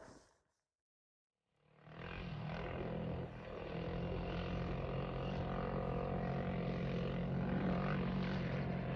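Small camera drone's propellers buzzing steadily at a constant pitch, fading in after a second or so of silence.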